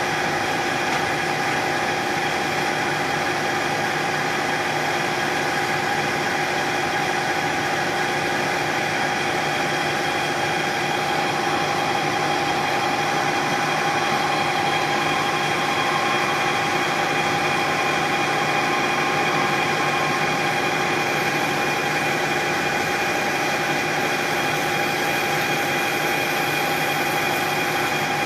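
Machine tool running steadily: an even motor hum and whine that stays the same throughout.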